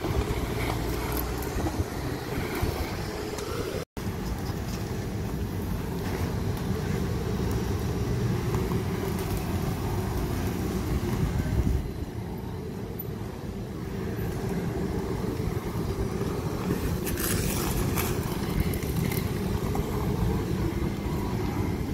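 Glutton battery-electric street litter vacuum running steadily, its suction fan drawing through the hose as the nozzle is swept over paving stones.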